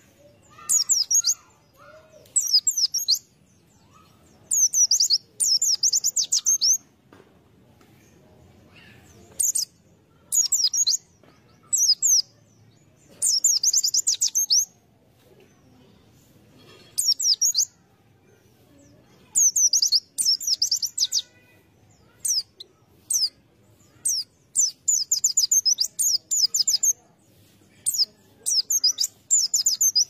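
A white-eye (pleci) singing: bursts of high, rapid twittering phrases, each about half a second to a second and a half long, repeated again and again with short pauses between them.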